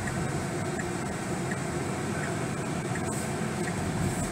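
Steady road and tyre noise inside the cabin of an electric Tesla Model 3 cruising at about 35 mph, a low, even rumble with no engine sound.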